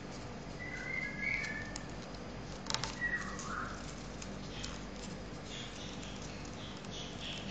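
Sheet of origami paper being folded and creased by hand, with a few sharp crinkles a little under three seconds in, while a bird chirps in short whistled notes in the background.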